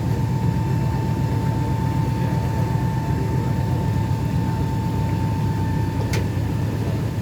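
A tour boat's motor running steadily: a low drone with a thin, steady whine above it. A single sharp click comes about six seconds in.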